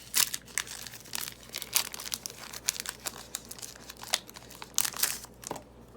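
Foil wrapper of a Pokémon trading-card booster pack crinkling and tearing as it is opened and handled, in quick irregular crackles that die down near the end.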